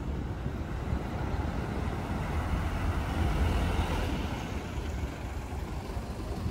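Highway coach's diesel engine and tyres as it pulls out and drives close past, a low rumble that swells to its loudest about halfway through and then eases as it moves off.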